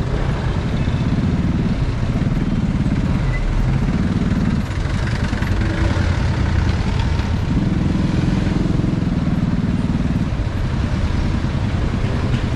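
Motorcycle engine running in slow, congested traffic, its note rising and settling several times, with the engines of jeepneys and cars close alongside.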